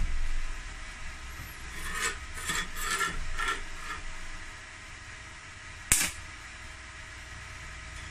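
Small metallic clicks and rattles as a welding rod is handled and fitted into a stick welder's electrode holder, then one sharp click about six seconds in, over a low steady hum.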